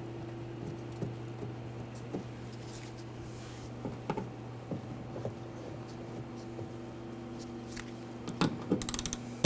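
Scattered light clicks and taps of a hand tool and metal parts being worked inside a car door while the latch bracket screw is tightened, over a steady low hum. A quick run of sharper clicks comes near the end.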